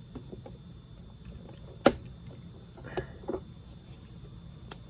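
Scattered sharp clicks and light knocks of handling a case of die-cast metal toy cars, the loudest just under two seconds in, others about three seconds in and near the end.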